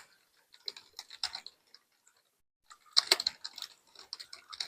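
Computer keyboard typing: two short runs of key clicks with a pause of about a second and a half between them.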